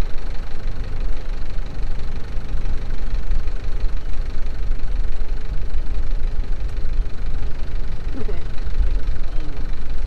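Wind buffeting the microphone of a camera mounted on an open boat: a steady low rumble that rises and falls irregularly.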